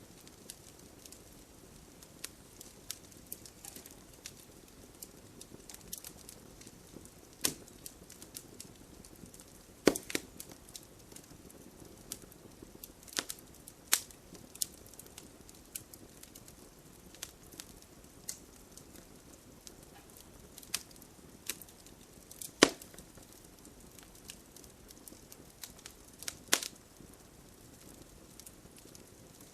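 Wood campfire crackling: irregular sharp pops and snaps over a faint low hiss, with a few louder pops, the biggest about two thirds of the way through.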